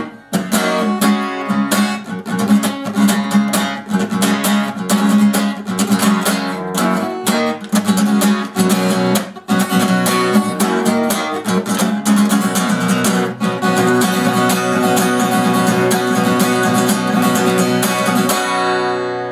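Acoustic guitar strummed fast and steadily in a run of chords. The strumming stops near the end and the last chord is left ringing.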